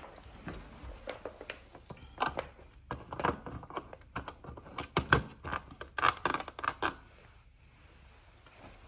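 A rapid, irregular run of clicks, taps and scrapes lasting about seven seconds, then dying away to faint room noise.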